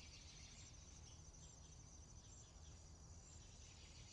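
Near silence with faint, steady high-pitched insect chirring, crickets pulsing about once a second.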